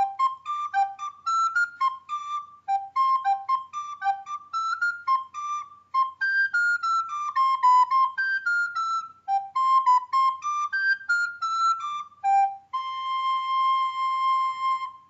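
Solo flute-like melody of quick separate notes, rising and falling in short phrases, ending on one long held note near the end.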